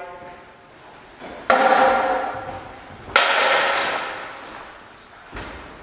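Steel training longswords clashing blade on blade: two sharp strikes about a second and a half apart, each ringing on with a metallic tone, followed by a few lighter knocks.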